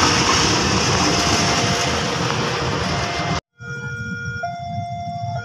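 Loud rushing noise with a railway level crossing alarm's tones faint beneath it; after a cut about three and a half seconds in, the level crossing warning alarm sounds clearly, two electronic tones alternating about once a second.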